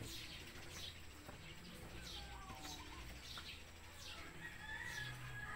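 Faint outdoor birdsong: short, high, falling chirps repeating about once a second, mixed with clucking from chickens, over a low steady hum.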